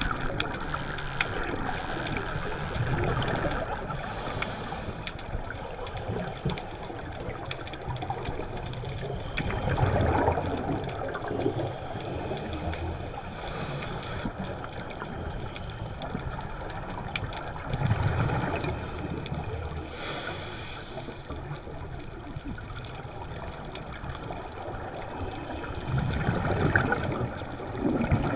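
Scuba regulator bubbles underwater: a steady bubbling wash with four louder surges of exhaled bubbles, about every eight seconds, in time with a diver's breathing.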